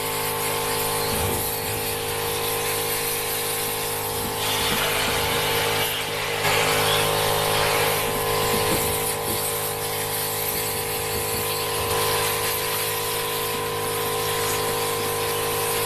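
Portable high-pressure washer (air-conditioner cleaning machine) running with a steady motor-pump hum while its water jet hisses against the air conditioner's evaporator fins, the hiss swelling for a couple of seconds partway through.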